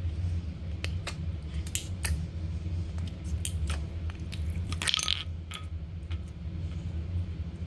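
Slime being squished and worked by hand, making scattered small clicking pops and crackles, with a denser run of crackling about five seconds in. A steady low hum runs underneath.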